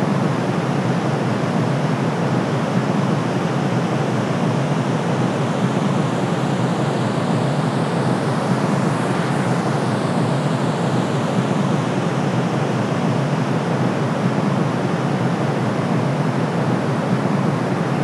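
Steady white noise: an even, deep rushing hiss that never changes.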